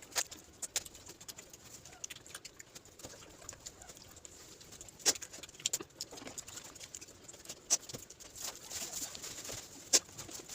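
Eating sounds: scattered small clicks and smacks of food being handled and chewed.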